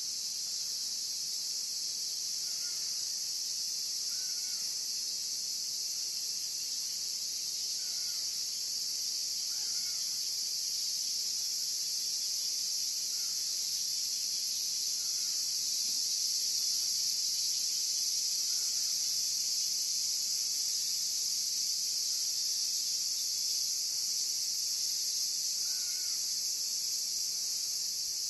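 A steady, high insect chorus, with faint short calls every second or two underneath it.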